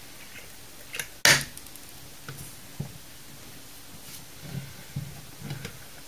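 Glued plastic housing of a portable Bluetooth speaker cracking as it is pried apart: one sharp crack a little over a second in, then scattered small clicks. It is the glue seal giving way, which the repairer takes to be meant to make the speaker waterproof.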